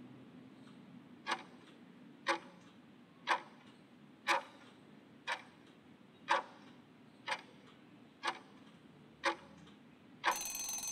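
Countdown timer sound effect: a clock tick once a second, nine ticks in all, then a short ringing burst near the end as the countdown runs out.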